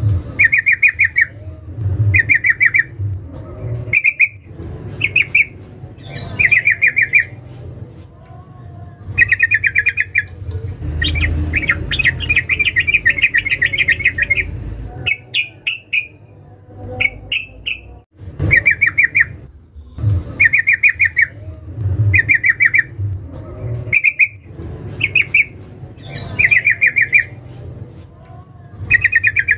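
Female yellow-vented bulbul (trucukan) repeating short, rapid chattering calls about once a second, with one longer chattering run about eleven seconds in. This is the female's call to a male.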